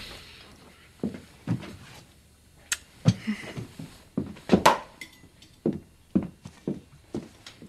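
A run of short knocks and clinks, coming about every half second in the second half.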